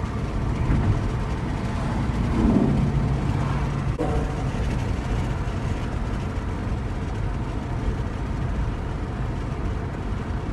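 Road noise inside a moving car: a steady low rumble of engine and tyres, with a brief louder swell about two and a half seconds in.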